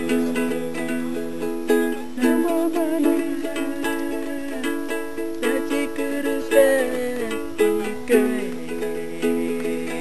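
A small ukulele strummed in steady chords, playing a lullaby.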